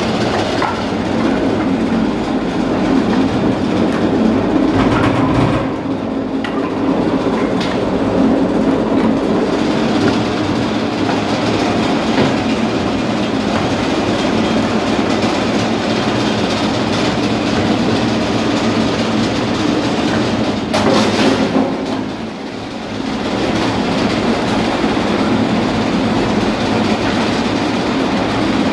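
SBS 1520 F2 vibrating screening plant running, with split firewood logs clattering and rattling on its shaking steel screen decks as they are sorted; a steady, loud clatter, with one brief louder burst about 21 seconds in.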